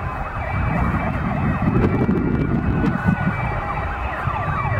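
Many fire truck sirens wailing at once, their rising and falling tones overlapping, over the low rumble of the trucks' engines, which grows louder about two seconds in as the lead truck passes.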